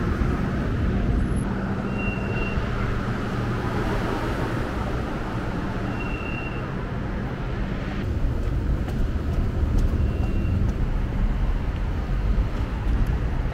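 Light-rail tram's steady low running hum and rumble, growing a little louder in the second half, with a short high beep repeating about every four seconds.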